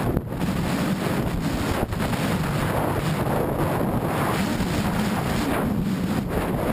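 Heavy wind buffeting on the microphone while a Jeep Wrangler JK diesel drives fast over desert sand tracks, its engine and tyre noise running underneath.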